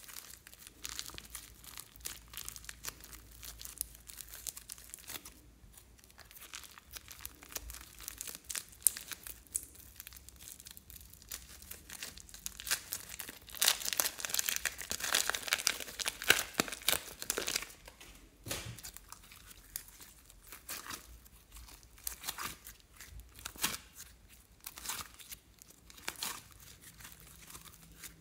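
Pink slime being stretched, folded and squeezed by hand, giving a run of sticky crackles and small pops. It gets louder for a few seconds in the middle.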